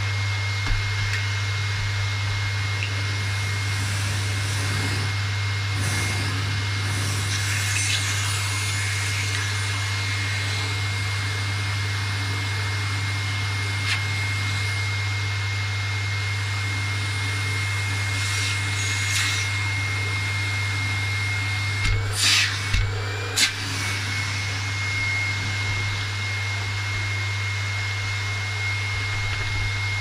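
Bagged vacuum cleaner running steadily over carpet: a constant high whine over a low hum. About 22 seconds in comes a short cluster of sharp knocks, and the whine briefly wavers.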